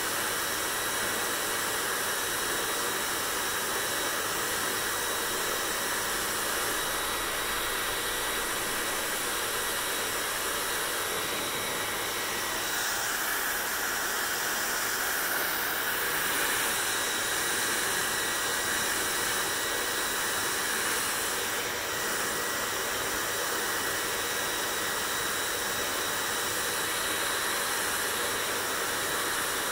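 Electric hair dryer running steadily: a continuous rush of blown air over a thin, steady motor whine. The rush grows brighter for a few seconds around the middle, then settles back.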